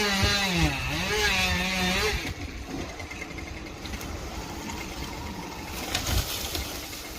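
Two-stroke chainsaw revving: its pitch drops and climbs again over the first two seconds, then it runs quieter with a few knocks near the end.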